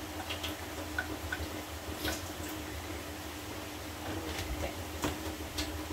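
Kitchen sounds during cooking: a steady low hum, with light clicks and taps of utensils scattered every second or so.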